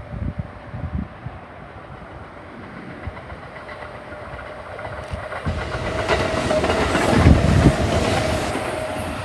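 Sanyo Electric Railway 3000 series electric train approaching and passing, its wheels clacking over the rail joints. The sound builds steadily to its loudest about seven seconds in as the train goes by, with a steady tone riding over a low rumble.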